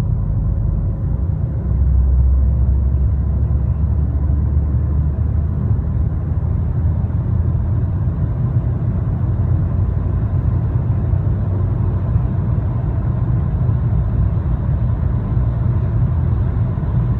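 Volkswagen Tiguan 2.0 TSI running with a loud, steady low rumble that grows heavier for a few seconds near the start, and a faint steady whine above it. This is the extraneous noise the owner is recording; its cause is not given.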